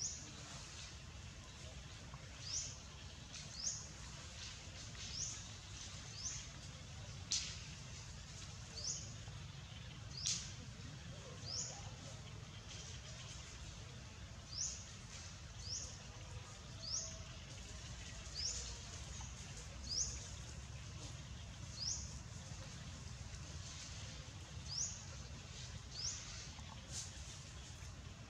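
A bird repeating a short, high chirp that rises in pitch, about once every second or two, over a steady low rumble of outdoor background noise.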